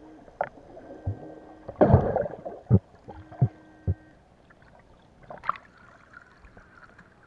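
Muffled underwater sound picked up through an action camera's waterproof housing: a handful of dull knocks, the loudest about two seconds in. Two steady electronic tones, each about a second long, sound about a second in and again about three seconds in.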